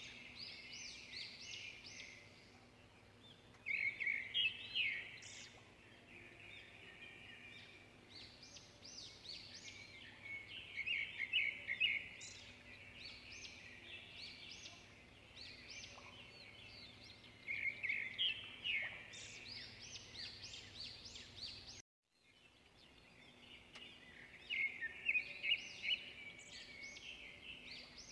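Small birds chirping in repeated bouts of quick, high chirps, each bout a second or two long, with quieter stretches between.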